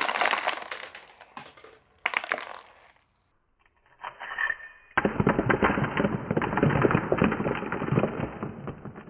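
Brass lock pins and springs bursting out of a Sparrow Revolver pin-tumbler lock as its plug is pulled without a follower, clattering onto a desk in a burst of small metallic clicks. A second shorter clatter comes about two seconds in. From about four seconds the scattering is replayed with a duller, muffled sound, a dense run of tiny clicks.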